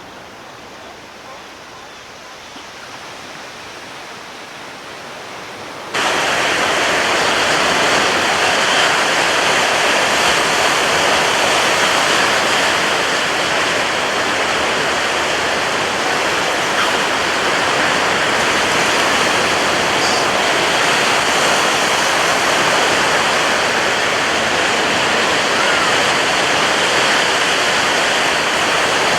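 Steady rushing of sea surf, with no separate wave breaks. About six seconds in it jumps suddenly much louder and stays there.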